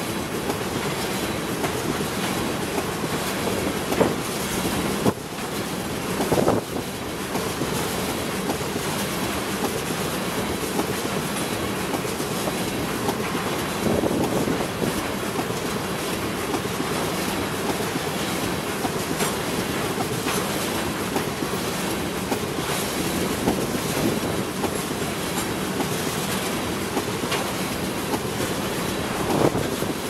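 Loaded ethanol tank cars of a freight train rolling past: a steady rumble and rush of steel wheels on rail, with a few louder irregular knocks.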